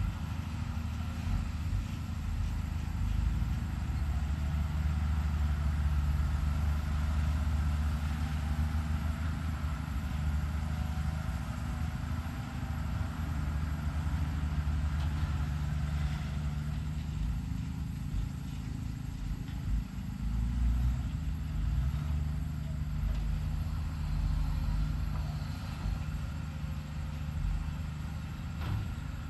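Diesel engine of a Hyundai HX210HD hydraulic excavator running steadily at work, a low engine drone with some rise and fall in load.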